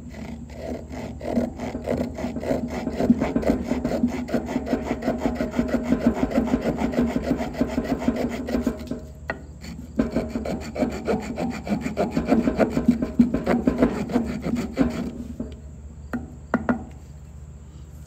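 Victorinox Swiss Army Hiker pocket knife's small wood saw cutting damp wood in quick back-and-forth strokes. The strokes pause briefly about nine seconds in, run on, and end with a few last strokes near the end.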